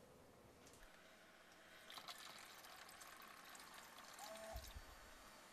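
Water poured from a pitcher into a Keurig K55 coffee maker's water reservoir to refill it. It is faint and starts about two seconds in.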